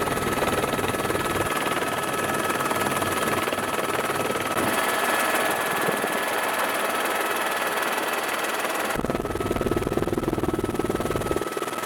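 Steady drone of an aircraft's engine heard from on board, with a thin high whine running through it. The sound changes abruptly twice, about four and a half and nine seconds in, where the footage cuts between shots.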